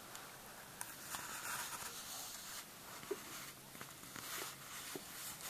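Faint rustling and scattered small clicks of handling noise as a hand-held camera is moved and panned, over a soft steady hiss.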